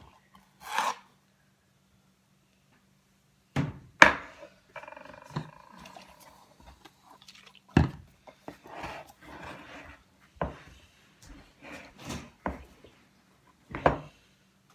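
Wooden spoon stirring thick white slime in a plastic mixing bowl, knocking sharply against the bowl about seven times at irregular intervals, with softer stirring noise in between.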